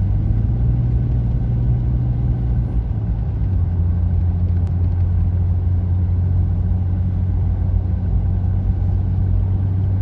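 Car engine and road noise heard from inside the cabin while driving: a steady low drone that dips slightly in pitch about three seconds in.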